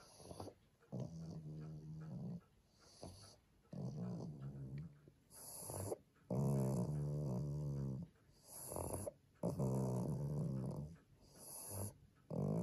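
Pug breathing noisily, with a snoring rasp on each breath and about one breath every one to two seconds.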